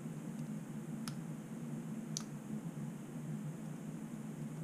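Three faint, sharp little clicks of small metal lock parts, pins and springs being worked into the core of an ABUS 72/40 padlock during reassembly, over a steady low background hum.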